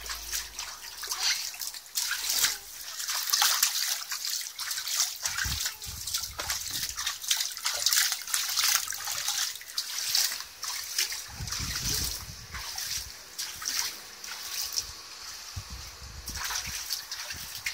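Shallow water in an inflatable paddling pool splashed and sloshed by hand: a quick, irregular patter of small splashes and drips.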